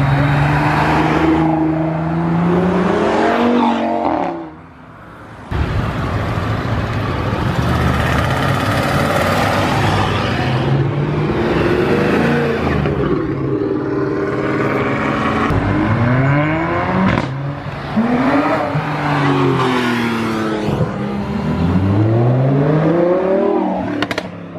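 Performance car engines accelerating hard away, revving up through the gears: the pitch climbs again and again and drops at each gear change. The sound dips briefly about five seconds in, then another run of hard acceleration follows.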